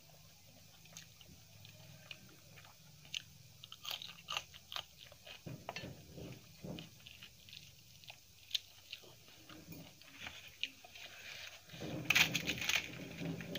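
Close-miked eating: chewing and mouth clicks and smacks of rice and dal. Near the end a louder, longer crackle as a large crisp papad is broken.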